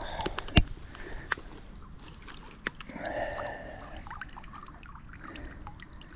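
Water dripping and trickling off a landing net lifted from the water with a carp in it, with a sharp knock about half a second in and a few lighter clicks and rustles of the net.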